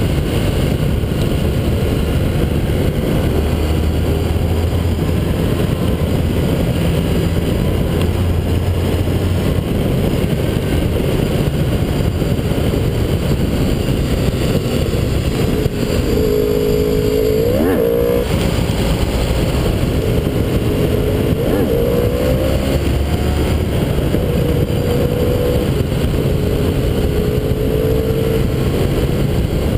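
Heavy wind rush on a low-mounted action camera on a sport motorcycle moving at road speed, with a motorcycle engine running underneath. Just past halfway the engine note climbs sharply, then holds a steadier pitch with small rises.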